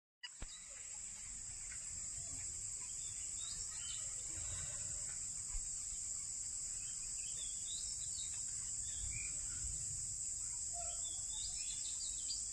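Steady high-pitched drone of insects, crickets or cicadas, with a few short bird chirps scattered through it; the sound comes in abruptly just after the start.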